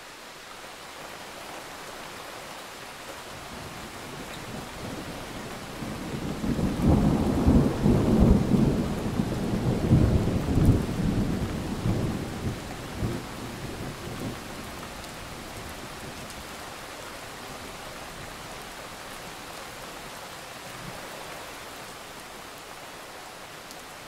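Steady rain with a long roll of thunder that builds about six seconds in, is loudest for the next few seconds, and rumbles away to nothing by about fourteen seconds in.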